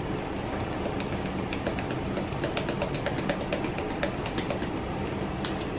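Spice jar of cloves being tapped and shaken out over a stainless steel mixing bowl: a long run of quick, light, irregular clicks.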